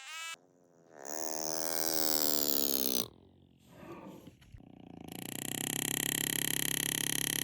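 Laser engraver zapping an outline into a sterling silver nail: a loud pitched whine that glides in pitch for a couple of seconds, stops, then returns as a steady, fast-pulsing tone.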